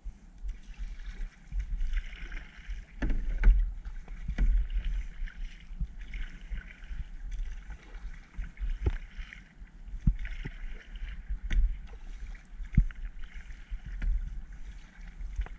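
Kayak paddling: water swishes and splashes with each paddle stroke, about every two seconds. Scattered sharp knocks and a low rumble lie under it.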